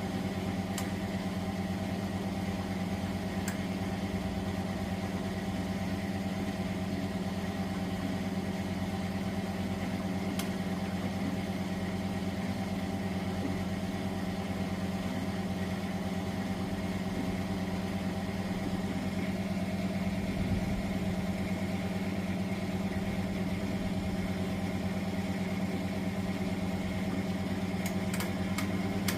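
Miele W423 washing machine running with a steady motor hum, with a few faint ticks.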